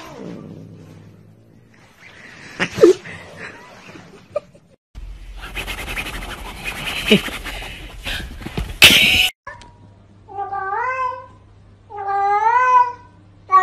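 A loud stretch of noise ending in a sharp knock, then a cat meowing: two drawn-out meows, each about a second long, rising and then falling in pitch.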